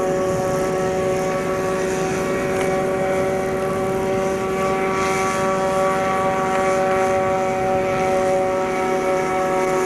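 Paracoupe ultralight aircraft in flight, its Kawasaki 340cc two-stroke engine and propeller running steadily at a constant pitch.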